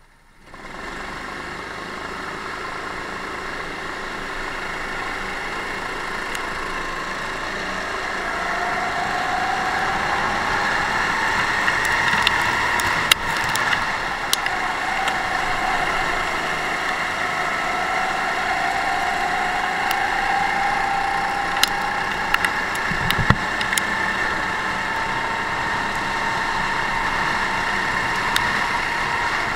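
Onboard sound of a racing kart's engine running at full throttle in a pack of other karts, its pitch climbing slowly as it accelerates along the straights and dropping back into the corners. A few short sharp knocks are heard about halfway through and again later.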